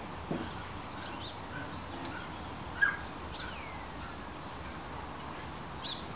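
Small birds chirping now and then over a steady outdoor background, with one short, sharp, louder sound about three seconds in.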